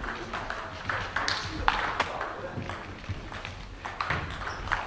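Table tennis ball being struck by rubber-faced bats and bouncing on the table during a rally: a quick, irregular series of sharp clicks.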